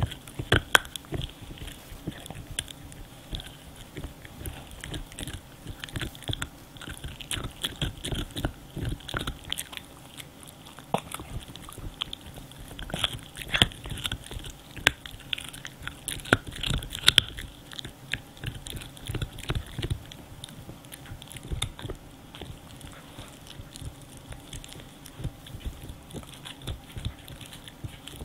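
French bulldog gnawing on a hard cow stick chew: irregular crunching and chewing bites throughout, loudest a little past the middle.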